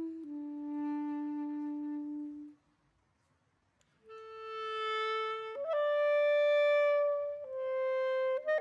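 Background music: a single woodwind instrument playing a slow melody of long held notes, breaking off about two and a half seconds in and coming back after a short pause with a few notes stepping up and then down.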